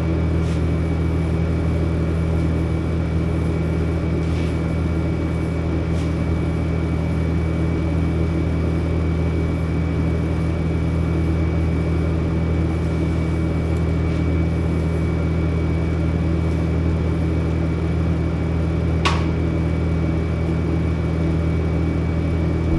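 Steady low hum of a running motor, with a sharp click about 19 seconds in; the hum drops off at the very end.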